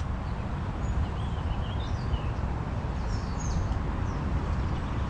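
Scattered short bird chirps and calls, clustered around two and three seconds in, over a steady low rumble.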